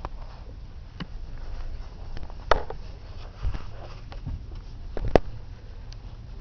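Muffled, steady low rumble of a motorcycle sidecar outfit on the move, heard from inside the enclosed sidecar cabin. It is broken by several sharp knocks and clicks, the loudest about five seconds in.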